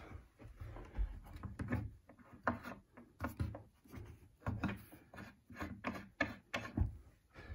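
Faint, irregular small clicks and scrapes as a hinge pin doorstop's threaded adjuster is turned by hand and the doorstop is handled on the door hinge.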